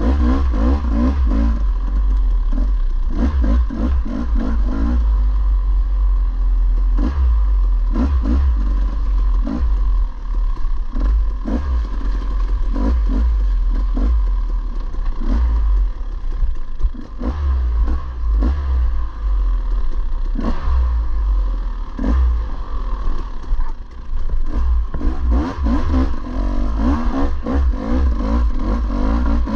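Dirt bike engine revving up and down as it is ridden hard along a muddy trail, with frequent clattering knocks as the bike bangs through ruts.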